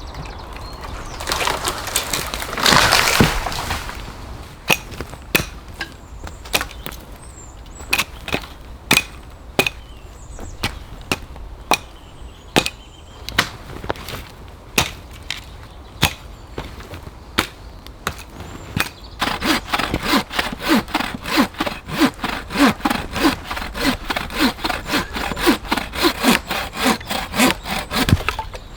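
Work on wood: a loud crackling rush near the start, then a long run of sharp single wooden knocks, about one or two a second. In the last third comes a hand saw cutting wood in fast, regular strokes.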